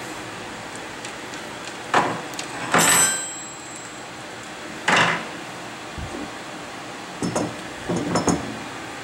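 Heavy metal clanks and knocks as a machine vise and its hold-down bolts are handled on the cast-iron table of a combo mill-lathe, five or six separate hits with a brief metallic ring after the one about three seconds in.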